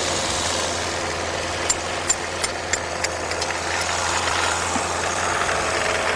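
Engine on a test stand idling steadily, with a quick run of about six sharp taps a couple of seconds in as a hole is knocked in its oil filter while it runs.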